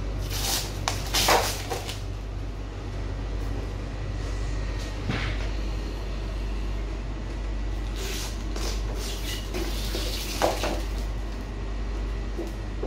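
Thin clear plastic face-shield visor and its packaging crackling and rustling as they are handled, in several short bursts, over a steady low hum.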